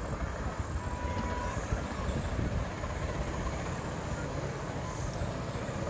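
Steady low rumble of a chairlift in motion, heard from a moving chair as it rides along the haul rope.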